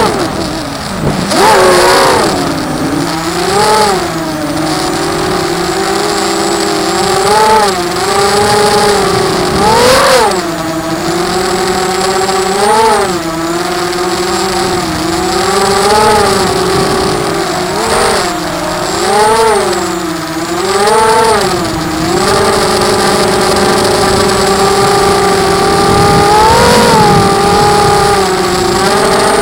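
ZMR 250 FPV quadcopter's brushless motors whining in flight. The pitch drops low just after the start, then climbs and swells up and down every second or two with throttle changes, holding steadier near the end.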